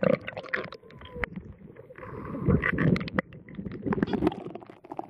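Water splashing and sloshing against an action camera's waterproof housing as it is pulled up through the lake surface, with irregular knocks and handling bumps on the housing.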